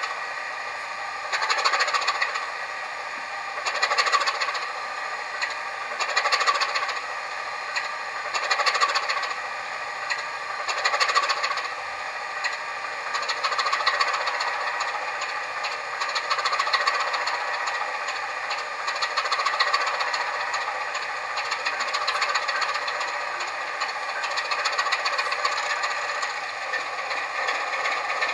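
Sound-fitted model railway locomotive running, its recorded engine sound coming through a small onboard speaker with little bass, along with light rattling. The sound swells and fades about every two seconds at first, then evens out in the second half.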